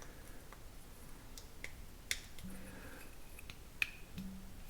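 Small plastic model kit parts being handled and pressed together: a few scattered, sharp little clicks of plastic on plastic, the clearest about two seconds in and another near the end.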